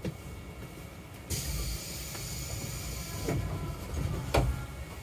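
JR East 651 series electric train rumbling with a sudden hiss that runs for about two seconds and cuts off, then two sharp knocks, the second the loudest.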